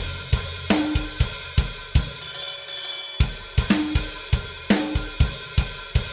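Recorded drum-kit intro track: a beat of kick, snare, hi-hat and cymbals. About two seconds in the kick and snare drop out for about a second, then the beat comes back in.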